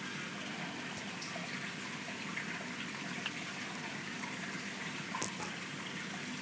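Water running steadily in a seafood holding tank, as from its circulating pump or aeration outflow, with a few faint ticks or small splashes.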